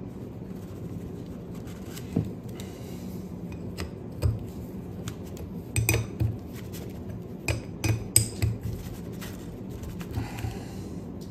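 Metal parts of a Robin carburetor clinking and knocking as the carburetor body is turned over and fittings are worked on a table. The taps are irregular, with a busier cluster in the middle, over a steady low hum.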